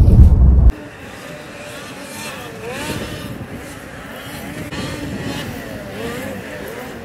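Under a second of loud, low road rumble inside a moving car, cut off abruptly. Then several racing snowmobiles rev up and down over a practice track, their overlapping engine notes rising and falling.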